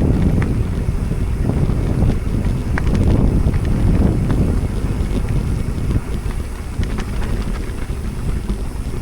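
Wind buffeting the microphone: a steady low rumble with scattered faint ticks.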